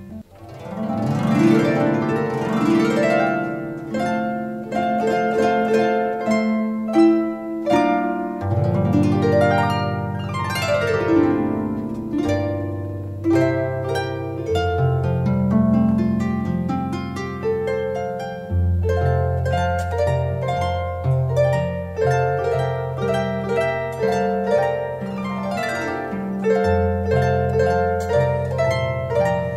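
Solo harp background music: plucked, ringing notes over a low bass line, with sweeping glissandos about a second in and again around nine seconds in.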